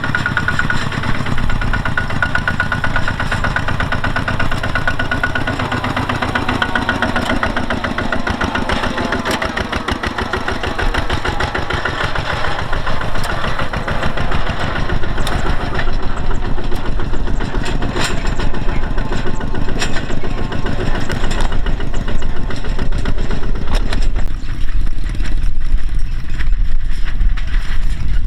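Diesel engine of a farm machine running, its firing a steady even pulse. It grows louder a little past halfway through, and near the end its sound turns deeper.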